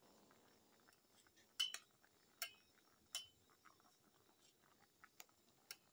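A few light, scattered metallic clinks of a kitchen utensil against a cooking pot, each with a brief ring, over near silence.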